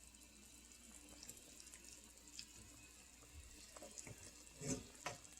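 Near silence with faint, soft, wet handling noises of cooked chicken being pulled apart, a few a little louder near the end.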